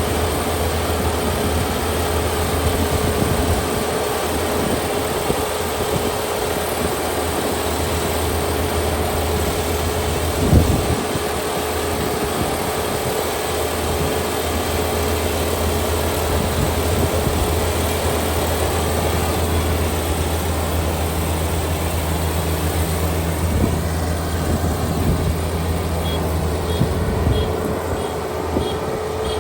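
Kubota ER572 72-horsepower combine harvester running steadily: a continuous diesel drone with a steady hum over it. There is a single knock about ten seconds in, and faint repeated high beeps near the end.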